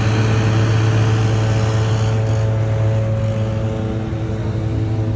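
Steady engine drone heard inside a bus: an even low hum with faint steady overtones, easing slightly in loudness in the second half.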